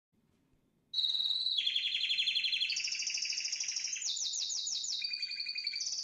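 Canary singing: a string of rapid trills, each held about a second at a different pitch before switching to the next, starting about a second in.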